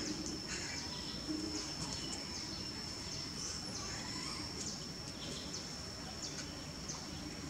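Outdoor ambience: a steady high-pitched whine with many short, high chirps scattered through it, and a brief lower squeak about a second in.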